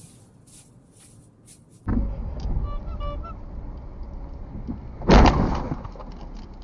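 Two short electronic beeps, then a single loud thump about five seconds in, consistent with the camera car bumping into the rear of a Hyundai Elantra in a low-speed rear-end collision. Before that there is faint road noise with light hissing.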